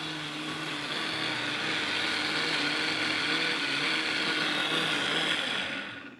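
Countertop blender running at speed, puréeing cooked potato and leek soup into a smooth cream. Its motor is switched off near the end and the noise dies away.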